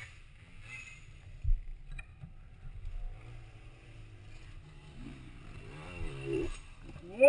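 Faint enduro dirt bike engines running and revving, with a single knock about one and a half seconds in.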